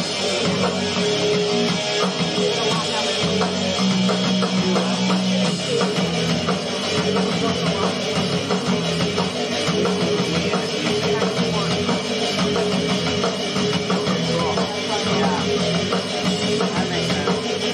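Loud punk-rock music from a guitar, bass and drums trio, a take of the band's instrumental track with electric guitar over a steady driving drum beat.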